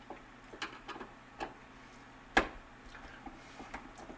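Light clicks and taps of a screwdriver and hands against the deadbolt's interior cover, with one sharper knock about two and a half seconds in.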